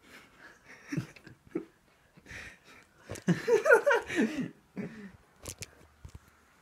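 Boys laughing without words, loudest for a second or so midway, with a few sharp knocks and rustling as the phone is grabbed and its lens covered.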